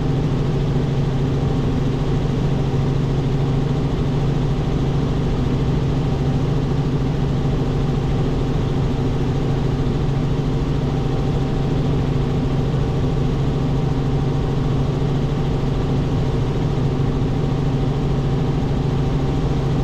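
Robinson R44 helicopter in steady cruise flight, heard from inside the cockpit: engine and rotors make a constant drone with a strong low hum and an even rushing noise over it.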